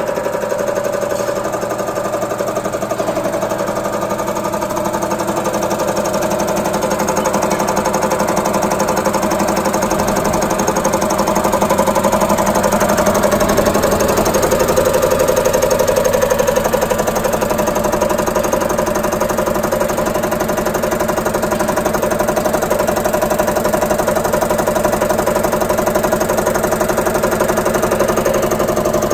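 Diesel injection test bench running an EUI/EUP cam box, the cam drive and electronic unit injector making a rapid, even ticking over a steady motor hum.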